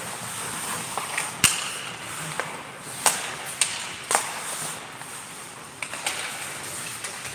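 Ice hockey play in a rink: a series of sharp clacks of sticks on the puck and the puck against ice and boards, the loudest about one and a half seconds in, over a steady hiss of the arena.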